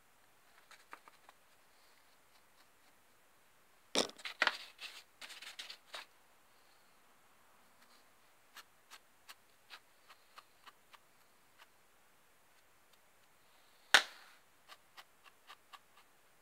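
Small taps and clicks of a hand and paintbrush working over a card collagraph plate coated with PVA-glued sawdust: a cluster of sharper knocks about four seconds in, scattered light ticks, and one louder tap near the end followed by a quick run of ticks.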